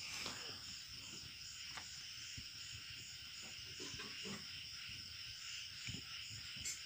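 Faint scratching and tapping of a pen writing on paper, over a steady high chirring that pulses about twice a second.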